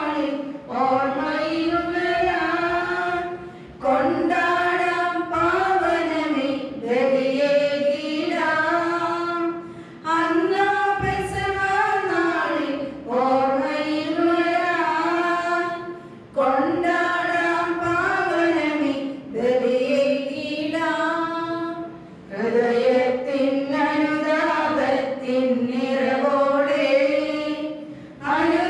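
Unaccompanied liturgical singing with no instruments: a melody sung in phrases of about three seconds, with short breaks for breath between them.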